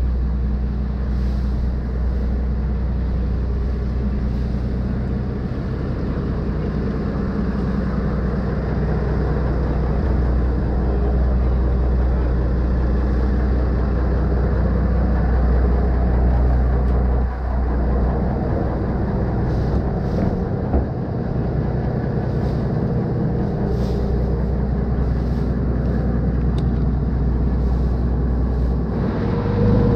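Diesel engine of a Khlong Saen Saep canal express boat running, heard from on board as a steady deep drone.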